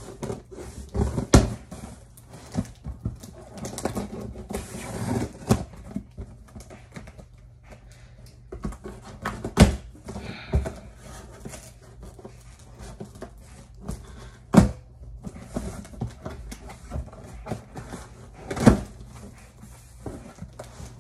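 A cardboard box being opened and handled by hand: scattered knocks and thumps, four of them loud, mixed with rustling and scraping of cardboard and contents, the longest rustle about four to six seconds in.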